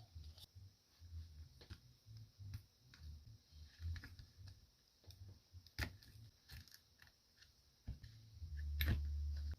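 Scattered light clicks and taps of hands and tools working on a small Bluetooth speaker as it is taken apart, over irregular low handling thumps; a steady low hum sets in about a second before the end.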